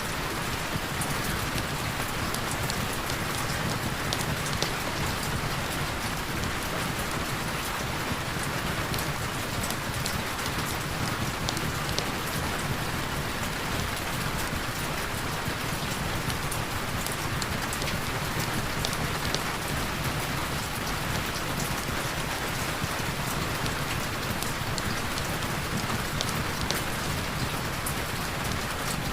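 Heavy rain falling steadily as an even hiss, with scattered sharp ticks of individual drops striking close by.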